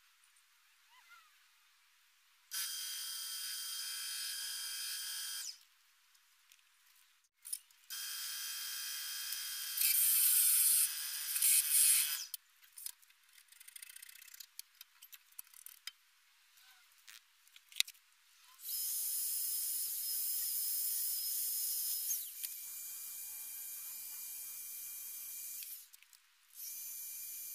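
Bernardo KDM 1100 wood lathe motor running with a steady whine in several stretches, switched on and off four times. Between the runs come quieter, irregular clicks and scrapes.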